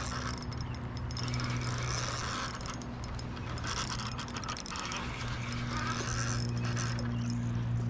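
Fishing reel ratcheting and whirring with a rapid run of fine clicks while a hooked steelhead is being played.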